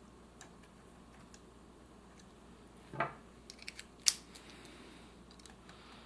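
Small clicks and handling noises of cassette-deck mechanism parts being fitted back into place by hand: a short scrape about three seconds in, a few light clicks, then one sharp click a little after four seconds, the loudest sound.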